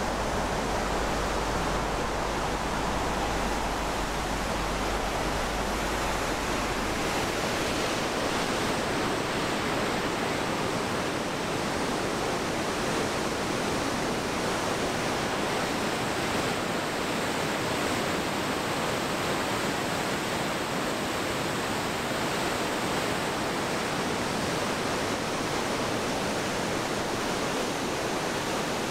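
Water pouring through a river weir's sluice gates: a steady, even rush of white water.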